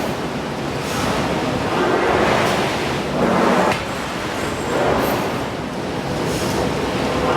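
Forge shop machinery noise from a hydraulic forging hammer working steel, with a rhythmic swell and faint knock about every second and a half.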